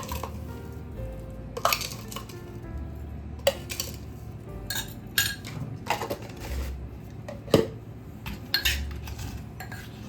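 Kitchen utensils knocking and clinking against a dish at an irregular pace, about ten sharp strikes, as seasonings for a papaya salad are stirred and mixed together.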